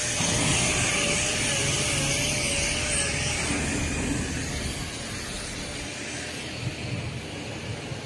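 Steady machine noise with a hiss. A thin wavering whine sounds through the first three seconds, and the noise eases off a little about five seconds in.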